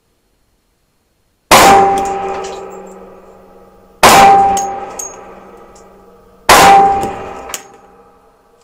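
Three shots from a Peter Stahl 1911 pistol in 10mm Auto, about two and a half seconds apart. Each shot leaves a ringing tone that fades over about two seconds.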